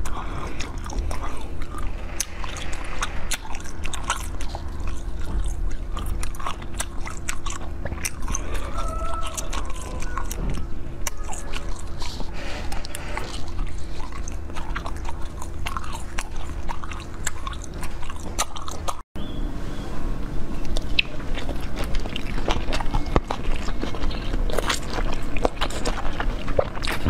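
Close-miked biting and chewing of frozen green balls, with many sharp, crisp crunches. After a short break about two-thirds of the way through, the sound changes to biting and chewing of coated blue jelly sweets.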